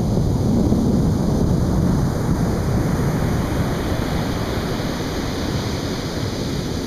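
Atlantic Ocean surf breaking and washing up a beach: a continuous rush of water with a deep rumble underneath, its hiss swelling a little midway.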